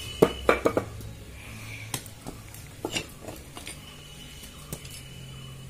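Whole coconuts being handled on a concrete floor: a quick cluster of knocks in the first second, then single knocks and taps every second or so, over a faint steady hum.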